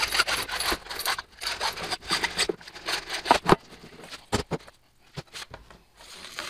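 Scraping and prying at the end cap of a long plastic shipping tube to get it open, with a few sharp knocks in the second half as it is worked loose.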